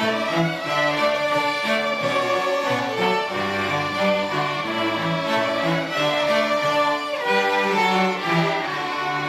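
An elementary school string orchestra playing a piece: violins carrying the melody over cellos, with the bass notes changing about every half second.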